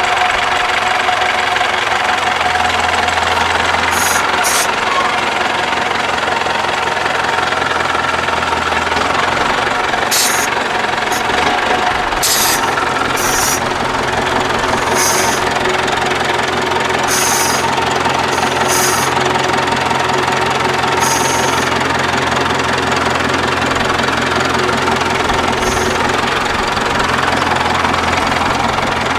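Diesel engine of an off-road trial truck running at low speed under load, its low note rising and falling as it works. Brief high hissing bursts come now and then.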